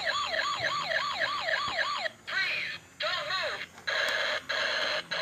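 Electronic siren sound effect from a battery-powered toy car's built-in speaker: rapid warbling wails, about five a second, for roughly two seconds, then a short wail and a buzzing electronic effect broken by brief drop-outs.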